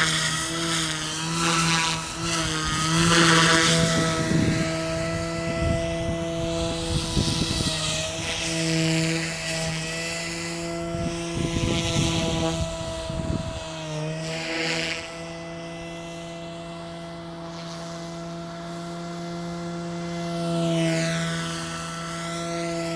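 SAB Goblin Fireball electric RC helicopter in flight: a steady whine from its motor and rotor, with a sweeping whoosh each time it passes by, near the start, about two thirds in and near the end.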